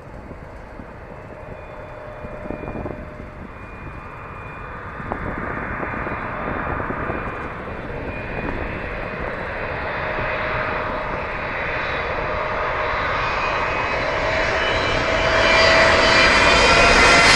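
Boeing 777 jetliner on final approach with its landing gear down, its jet engines rumbling and whining and growing steadily louder as it comes in low overhead. The high engine whine is loudest near the end.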